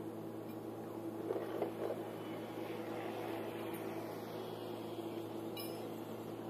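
Steady mechanical hum with a low drone, and a few faint clicks about a second and a half in.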